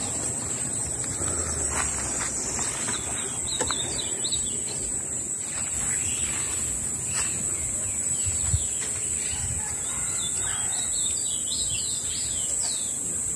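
Woodland ambience: birds chirping in short repeated calls over a steady high-pitched insect drone.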